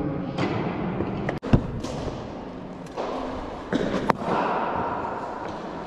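Cricket balls knocking against bat, matting and netting in an indoor net hall: one sharp knock about a second and a half in and two more close together near four seconds in, over the echoing hum of the hall.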